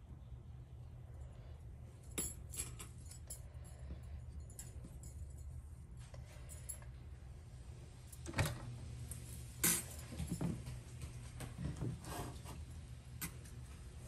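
Scattered light clinks and knocks of kitchen handling as a folded mughlai paratha is laid into an oiled frying pan on an electric hob, the sharpest about eight and a half and ten seconds in, over a steady low hum.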